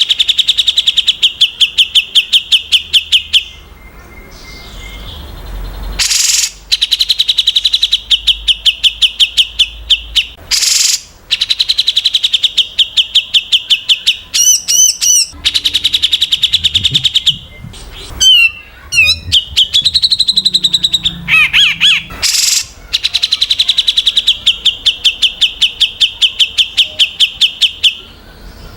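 Songbird singing in long runs of fast, evenly repeated high notes, each run lasting a few seconds, broken by short varied phrases and a few sharp, harsh notes.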